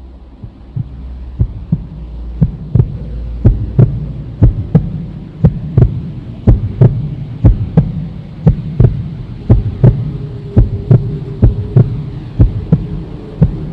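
Heartbeat sound effect: a double thump about once a second over a low steady hum, with a higher held tone joining in the last few seconds.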